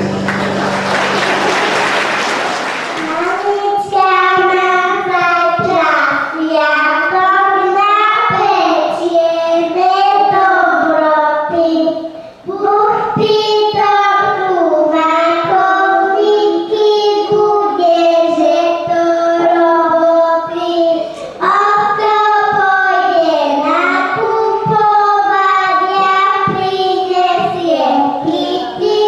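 A short spell of clapping, then a young girl singing a song solo and unaccompanied into a microphone, in phrases with brief breaths between them.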